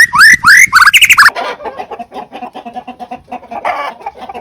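Loud bird calls, a run of quick rising whistled chirps several times a second, which cut off about a second in; then softer, rapid clucking calls.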